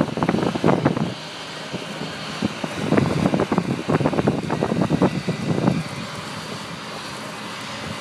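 A truck driving across a harvested field, its steady running noise broken by loud, rough, irregular bursts in the first second and again from about three to six seconds in, then steadier and quieter.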